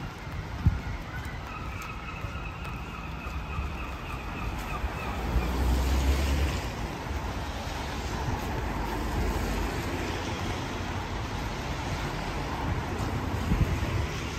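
City street traffic: a vehicle passing, its rumble and tyre noise swelling about halfway through, over a steady background of traffic noise. A faint steady whine sounds for a few seconds near the start.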